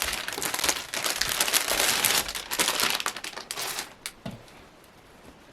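Velcro fastening on a cloth leg cover being pulled and handled, with the fabric rustling: a rasping, crinkling noise that stops about four seconds in.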